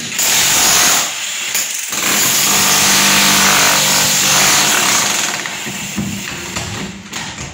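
Handheld power tool running in two bursts on masonry: a short one at the start, then a longer one of about three and a half seconds, followed by quieter work noise.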